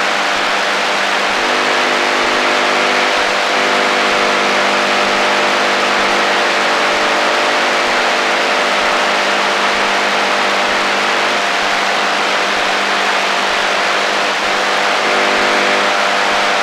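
AM radio static on the shortwave HF band: a steady hiss of noise over a buzzing drone of several low steady tones from interfering signals, some of which fade in and out.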